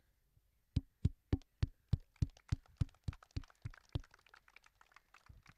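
A few people clapping: sharp separate claps about three or four a second, growing fainter and more scattered toward the end.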